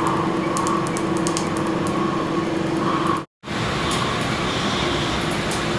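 Tattoo-removal laser equipment running with a steady fan-like hum carrying two even tones, and faint quick ticks about a second in and again around four seconds in. The sound cuts out briefly a little past three seconds in.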